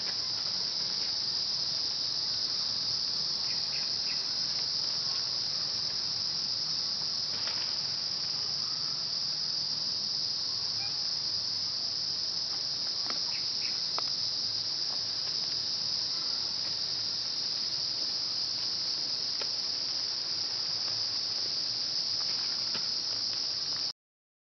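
Steady, high-pitched chorus of insects singing without a break, with a few faint clicks scattered through it; it cuts off suddenly near the end.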